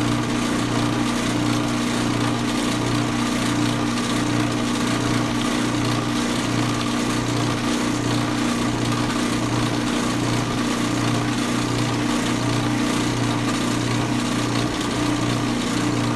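Drill press running steadily with a constant motor hum while it bores a locking-pin hole through the wooden box side into the drawer.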